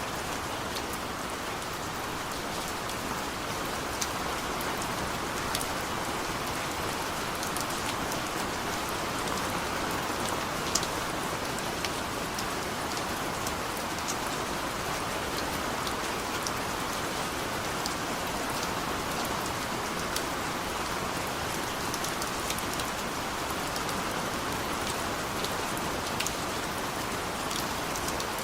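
Heavy rain falling steadily, a continuous hiss with scattered sharper drop taps throughout.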